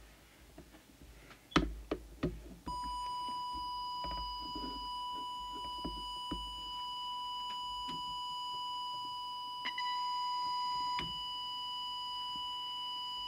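A few handling clicks, then a steady, pitched audio test tone from a signal oscillator starts about three seconds in and holds. It briefly grows a little louder around ten seconds in. It is the tone fed into a 1982 Maxcom 20E UK FM CB transmitter to check and set its deviation.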